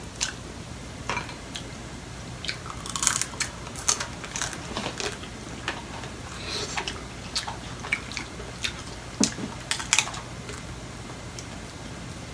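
Close-up eating of boiled seafood: irregular clicks, crackles and crunches of shells being handled and broken, mixed with chewing.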